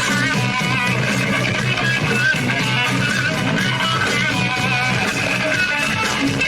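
Rock band playing live, electric guitar to the fore over bass, recorded on a phone with poor, crowded sound.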